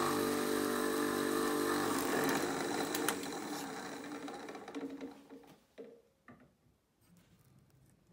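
Benchtop drill press running with a 12 mm Forstner bit, drilling a lead weight out of a wooden piano key. The motor's steady hum fades away over the second half, with a click about three seconds in.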